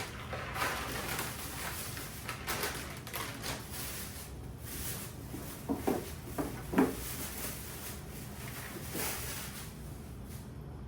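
Food containers and packages being handled and set down while a refrigerator is emptied: rustling throughout, with a few short knocks about six seconds in.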